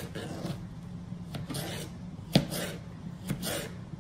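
Kitchen knife slicing a zucchini lengthwise on a cutting board: the blade knocks the board three times about a second apart, the middle knock loudest, with a softer scraping of the blade through the flesh between.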